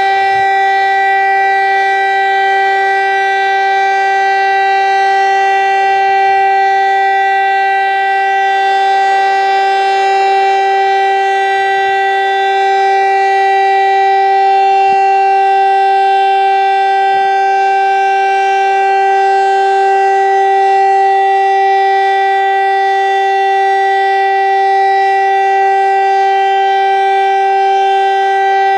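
VEM Grünhain DS977 electromechanical civil-defence siren sounding its steady test tone: its motor-driven rotor at full speed holds one unchanging, loud pitch of about 384 Hz, rich in overtones.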